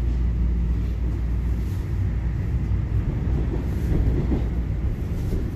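Bombardier Toronto Rocket subway train heard from inside the car as it pulls away from a station. A steady low hum gives way about two seconds in to a rougher, uneven rumble as the car gets moving.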